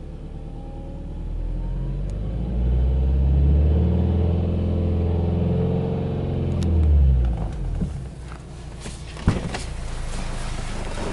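Subaru Legacy B4 tuned by STI's flat-four boxer engine revved up from idle while standing, held at about 3000 rpm for a few seconds with a short extra blip, then dropping back to idle. A sharp click about nine seconds in.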